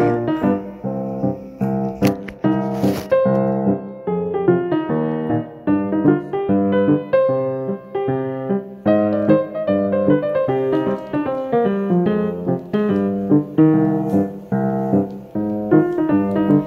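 Solo piano background music, a continuous run of notes.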